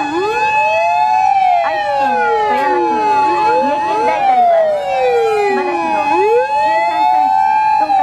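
Sirens of several Japanese fire engines wailing together as the trucks drive past one after another. The overlapping wails rise to a long held tone and fall away again, cycling every few seconds.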